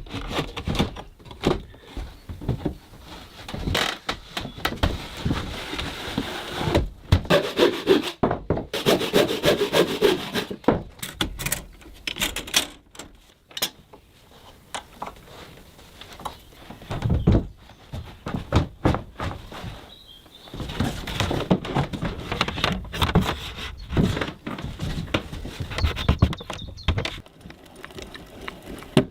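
Hand work on a heavy solid-wood door and its frame: irregular knocks and taps on wood, with stretches of wood rubbing and scraping against wood, and a quieter spell about halfway through.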